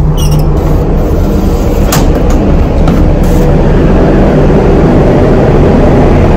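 Steady, loud low rumble of a ship under way, picking up speed after leaving port.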